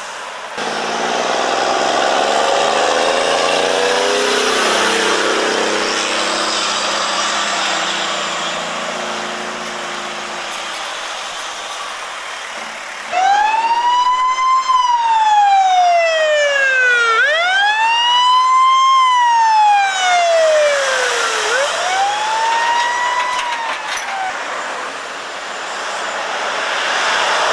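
Lorry engine running past, its note falling slowly over several seconds. Then an emergency vehicle's siren wails about halfway through: three loud rising-and-falling sweeps, each about three to four seconds long, the last one fainter.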